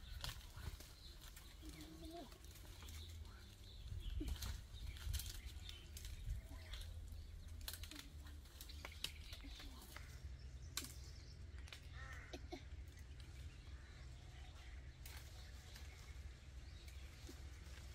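Leaves and branches rustling and cracking as someone climbs through a tree, with scattered sharp clicks over a steady low rumble. A few faint bird chirps come through about twelve seconds in.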